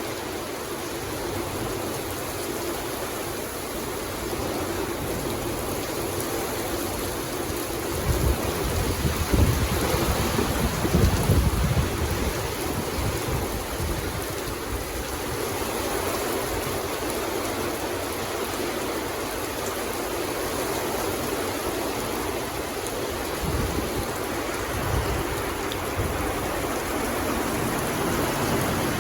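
Steady rain falling in a forest, an even dense hiss, with deeper low rumbles swelling up twice, about eight to twelve seconds in and again later.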